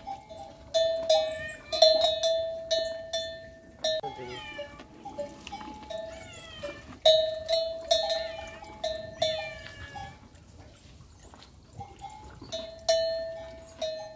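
Clear bell-like notes struck one after another on two pitches, each ringing briefly and dying away, in a phrase that repeats. Between the notes come curving chirp-like calls.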